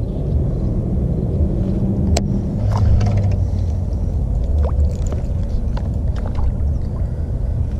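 A steady low rumble with a few sharp light clicks scattered through it, while a baitcasting reel retrieves a jerkbait.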